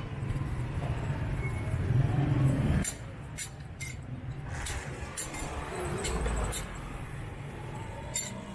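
Street-market sound: a low, steady engine hum cuts off suddenly about three seconds in, followed by scattered light clinks against a quieter background.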